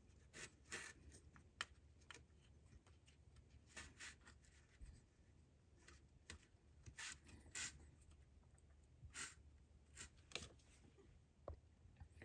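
Near silence broken by faint, scattered small clicks and ticks as steel bolts are turned in by hand into an aluminum thermostat housing.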